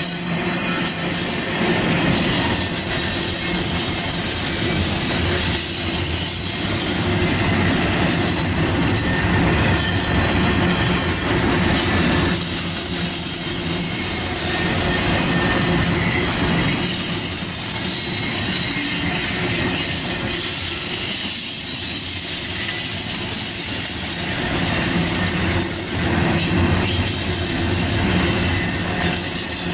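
Double-stack intermodal container well cars of a freight train rolling past, their steel wheels on the rails giving a steady, continuous rolling noise that swells and eases a little as the cars go by.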